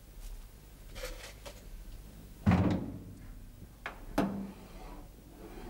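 Several knocks and thuds: a heavy thud about two and a half seconds in, then two sharper knocks a little before and after four seconds, with a few faint clicks earlier.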